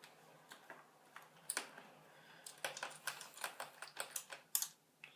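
Faint small clicks and ticks of a mini Phillips screwdriver working a small screw loose from a laptop's bottom panel, a few at first, then a quick irregular run in the second half.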